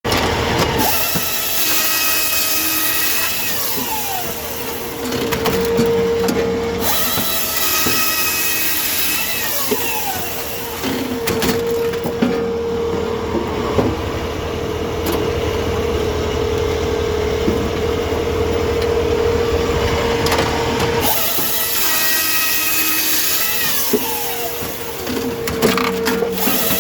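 Tajfun RCA 480 Joy firewood processor running and working through spruce logs in repeated cycles. The machine's pitch rises and falls, with a long steady hum in the middle stretch and scattered knocks of wood.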